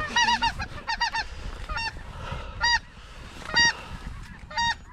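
Snow geese calling: short, high, yelping honks, several overlapping in quick succession in the first second or so, then single calls about once a second.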